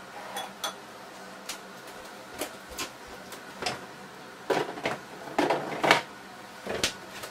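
Kitchen clatter: a metal spatula clinking into a small glass bowl, then scattered knocks and clattering of kitchenware, busiest about halfway through, over a faint steady hum.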